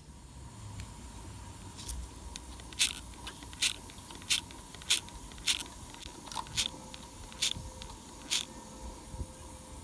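Small live steam locomotive, 3.5-inch gauge, letting out steam in a series of short, sharp hissing bursts, about eight of them in quick uneven succession, over a faint steady whine.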